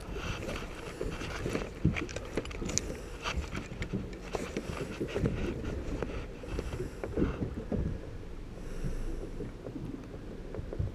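Irregular knocks, clicks and rattles of gear being handled aboard a small fishing boat, over a steady low background of boat and water noise.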